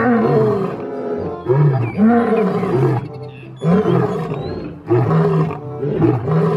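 Male lion roaring repeatedly: a series of loud roars, each starting sharply, about one every second or so.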